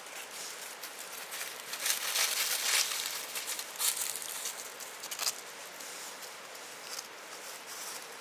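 Dry leaves rustling and crinkling, with a louder crackly stretch about two to three seconds in and brief crackles near four and five seconds.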